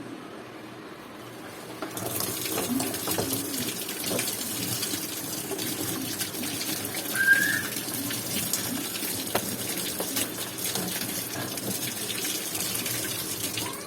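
Water running and splashing from a tap, starting about two seconds in and cutting off near the end, with a short high chirp about seven seconds in.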